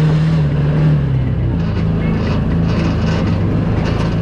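Side-by-side UTV engine running, its pitch held high and easing down about a second and a half in, then running on steadily.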